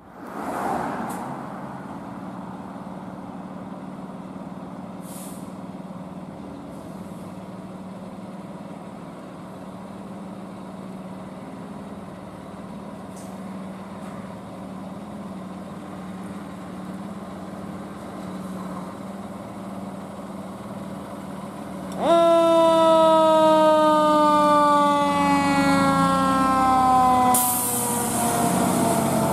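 A 2018 KME Severe Service fire engine's engine running steadily as it pulls out. About 22 seconds in, its siren comes on loud, its pitch falling slowly, and near the end a loud burst of noise cuts in over it.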